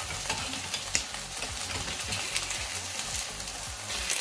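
Beef patties and an egg sizzling in hot oil in two pans, crackling steadily, with a metal spoon scraping and tapping in the small egg pan as the yolk is broken up.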